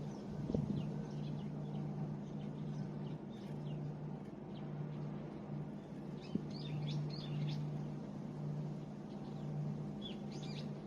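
Small birds chirping in short high calls, a few at a time and in little clusters, over a steady low hum.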